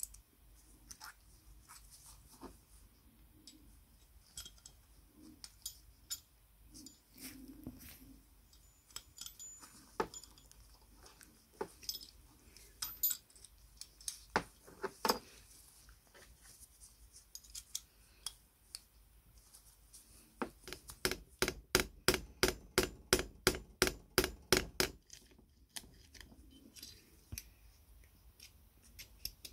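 Small chrome-plated metal parts of a double hole punch clicking and tapping against each other as they are fitted together by hand, with a quick, even run of about five clicks a second about three-quarters of the way through.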